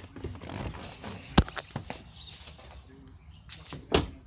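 Someone climbing out of a pickup-size SUV's passenger seat: rustling and handling noise, a sharp click about a second and a half in, and a heavier thump near the end.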